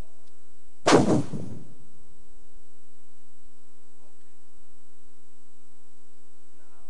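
Steady electrical mains hum from the sound system, with one loud, brief burst about a second in.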